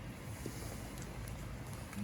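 Steady low, fluttering rumble of wind on the microphone under an even hiss, with a couple of faint clicks.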